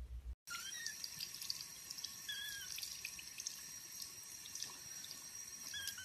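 Water running steadily from a sink faucet over a tiny kitten held in a hand, with a few short, faint, high wavering cries from the kitten.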